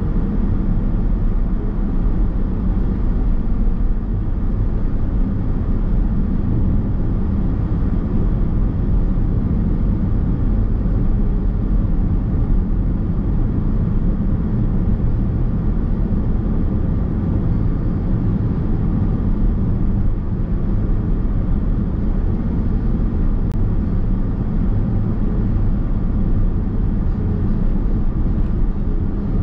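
Steady road and tyre rumble inside the cabin of a Nissan X-Trail Hybrid while it drives at an even pace.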